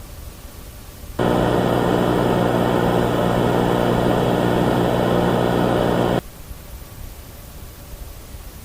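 Loud, harsh electronic buzz tone of an emergency broadcast, starting abruptly about a second in, held steady for about five seconds and cutting off suddenly, over a steady static hiss.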